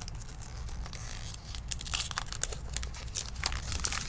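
Foil trading-card pack wrappers and cards being handled: crinkling, tearing and rustling. The crackles are sparse at first and come thick and fast from about two seconds in.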